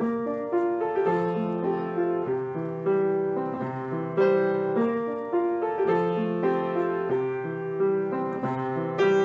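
Upright piano played with both hands: a slow figure of held notes and chords that repeats about every three seconds.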